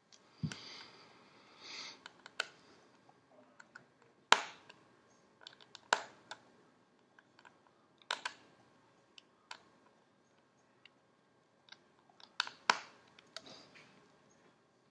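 Irregular sharp clicks and taps of small parts being handled and pressed onto the opened frame of a Samsung Galaxy S4, a second or two apart, with a short rustling scrape near the start.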